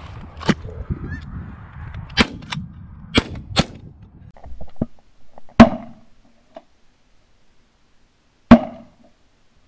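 Shotgun shots at incoming geese. There are several sharper, fainter shots in the first four seconds, with geese calling, then two loud close blasts about three seconds apart, near the middle and near the end.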